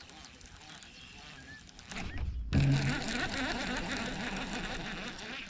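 Baitcasting reel cranked fast close to the microphone, a steady mechanical whirring that starts suddenly about halfway through, after a quieter stretch.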